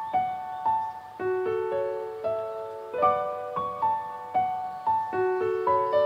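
Background piano music: a melody of single notes, a few each second, each one fading after it is struck.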